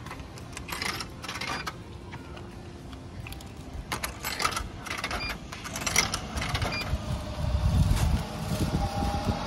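Coins dropped one after another into a drink vending machine's coin slot, clinking and rattling down through the coin mechanism in several short clusters, with a couple of brief high tones from the machine. A low rumble swells near the end.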